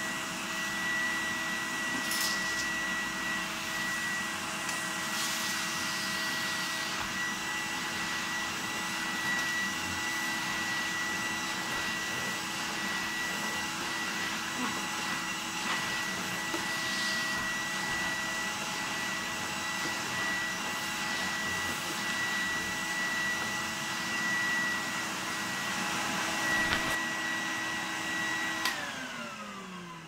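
1988 Numatic Henry HVR200 cylinder vacuum cleaner running steadily with a high whine. About a second before the end a click is heard, and the motor winds down with its pitch falling.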